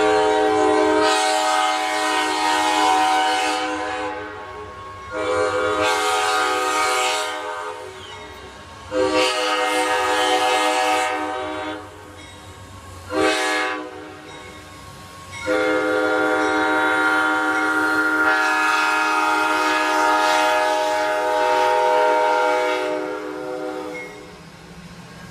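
Locomotive horn sounding three long blasts, a short one, then a final long blast held about eight seconds, the closing long-long-short-long run being the grade-crossing signal.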